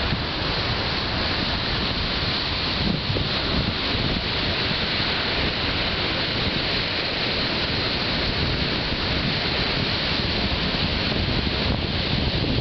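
Steady wash of surf breaking on a shingle beach, with wind buffeting the microphone.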